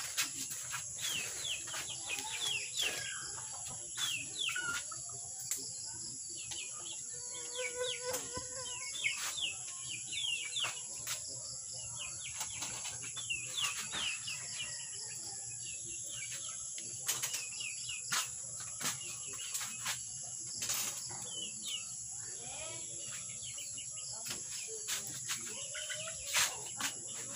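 Small birds chirping in quick runs of short falling peeps over a steady high insect drone, with scattered sharp clicks and knocks.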